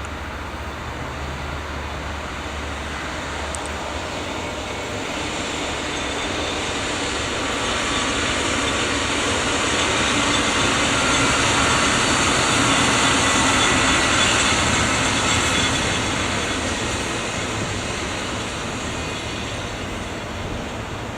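A train passing on the rails: its rolling, rushing noise swells to a peak about midway and then fades away.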